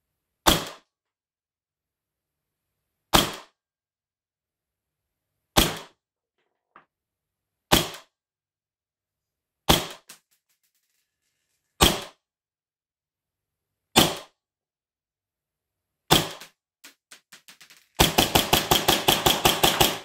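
Custom Tokyo Marui Hi-Capa 2011 gas blowback airsoft pistol running on HPA at 100 PSI, fired as single sharp shots about every two seconds through a chronograph, then a fast string of shots for the last two seconds.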